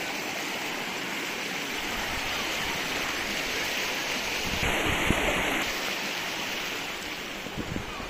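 Shallow stream running over rocks: a steady rush of water, with a few soft low thuds about five seconds in and again near the end.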